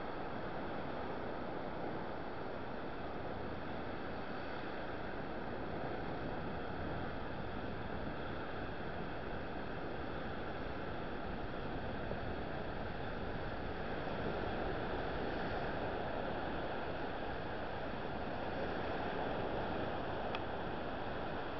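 Baltic Sea waves breaking on a sandy beach: a steady rushing surf that swells a little in the second half.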